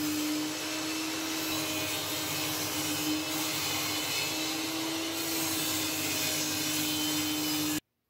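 Benchtop table saw running with a steady motor hum and spinning blade, holding an even pitch throughout. The sound cuts off abruptly near the end.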